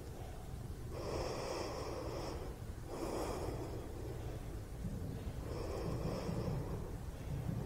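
A woman breathing audibly in time with prone Pilates leg lifts: three breaths, the first about a second in and lasting over a second, the other two shorter.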